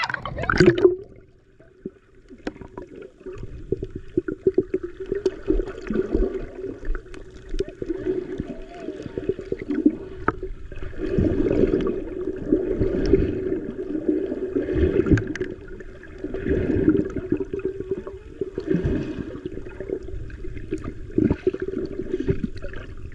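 Water heard from underwater: a splash just after the start as the microphone goes under, then muffled gurgling and rushing that swells and fades every couple of seconds over a steady low hum.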